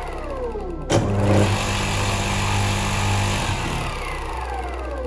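Mains-powered electric motor running with a steady low hum, with a sharp click about a second in; the hum cuts off about three and a half seconds in and a falling whine follows as the motor and its belt-driven alternator spin down.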